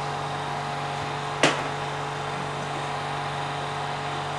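Kitchen range hood fan humming steadily. A single sharp clink sounds about one and a half seconds in.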